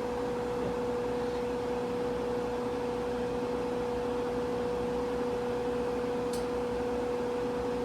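Washing machine running its spin cycle: a steady motor hum with one constant tone, the drum spinning without stopping. A faint click about six seconds in.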